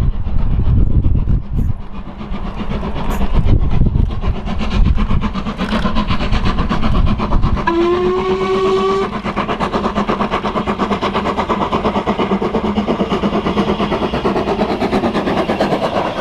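Mainline steam locomotive working hard on approach with a heavy exhaust, giving one whistle blast of a little over a second, rising slightly, about eight seconds in. The locomotive then passes and its train of coaches goes by with a fast, even rhythmic clatter of wheels on the rails.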